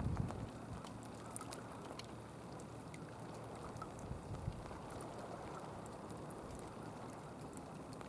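Faint sea water lapping and trickling, a soft steady wash with scattered tiny ticks.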